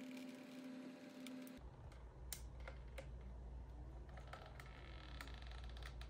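Stepper motors of a 3D-printed robot arm driving a joint, faint. A steady whine for about the first second and a half gives way to a low hum with scattered light clicks, and faint rising then falling whines near the middle as the joint speeds up and slows.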